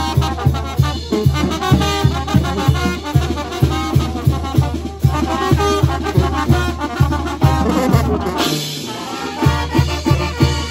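Live brass band of trumpets, trombones and sousaphone playing a lively dance tune over a steady bass beat of about three pulses a second. The bass drops out for about a second near the end, then the beat picks up again.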